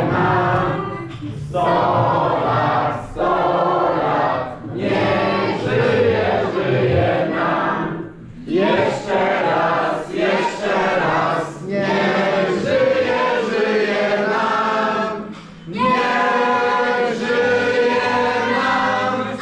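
A group of people singing together, loud, in phrases of a few seconds with short breaks between them.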